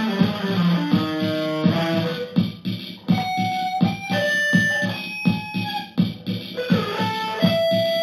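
Electric guitar playing single-note lines, some notes held long, over a steady beat of percussive hits.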